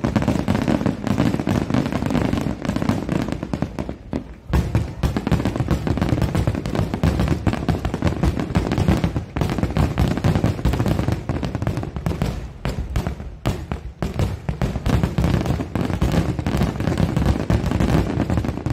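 Rapid-fire fireworks barrage: many shells launching and bursting in quick succession, a dense, continuous run of booms and crackles with a brief lull about four seconds in.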